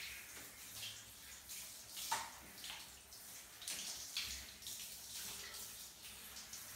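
A handheld shower head sprays water onto a golden retriever's wet coat, with irregular splashes as hands rub the fur. The sharpest splash comes about two seconds in.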